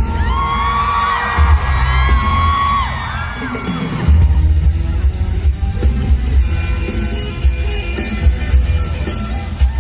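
A live band playing a pop-rock song. Held, bending notes ring out over the band for the first few seconds, then the drums and bass come in hard about four seconds in.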